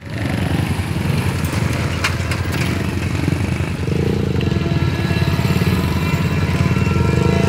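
Small motorcycle engines idling and pulling away close by, a steady low rhythmic chugging. About four seconds in, the horn of an approaching GMU-30 diesel locomotive starts to sound faintly in the distance, a steady chord of several tones.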